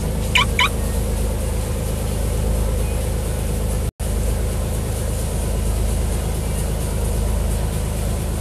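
Boat engine running steadily at cruising speed, with the rush of the churning wake. Two short high chirps sound just after the start, and the sound cuts out for an instant about four seconds in.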